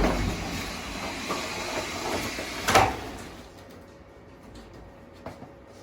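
Scraping and rustling as a decayed wooden kitchenette cabinet and its debris are handled, with one sharp knock of wood near the middle. Then quieter, with a few small clicks.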